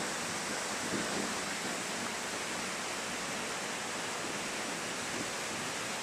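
Underground waterfall in a brick culvert: a steady rush of falling water.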